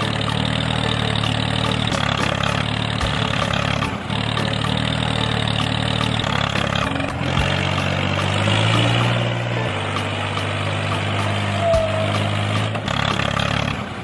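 A tractor engine running steadily.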